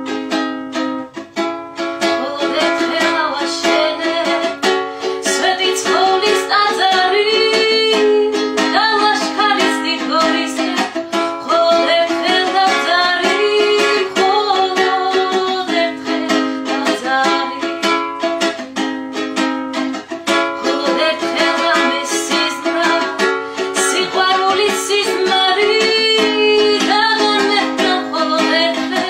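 A woman singing a Georgian folk song to her own accompaniment on a panduri, a Georgian three-stringed lute, strummed in quick plucked strokes over a held low note. The voice comes in about five seconds in and carries the melody from there.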